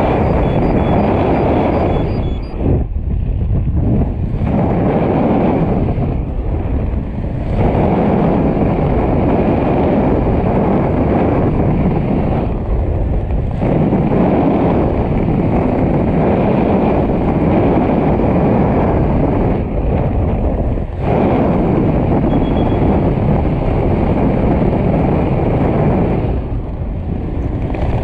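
Wind rushing over a helmet-mounted GoPro's microphone during descent under an open parachute canopy: a loud, steady rush that drops away briefly several times.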